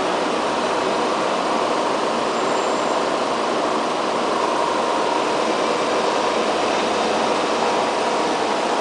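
Ascot R600 cup-brush distressing machine running, its motors and spinning brushes giving a steady whirring hiss with a faint steady whine.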